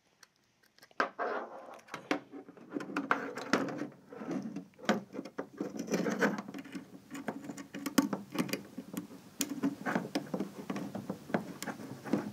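Handling noise from about a second in: many small clicks, taps and scrapes as fingers and wire leads work against the plastic case and circuit board of a Honeywell 5800RP wireless repeater, pushing the cable's legs into its blue terminal block.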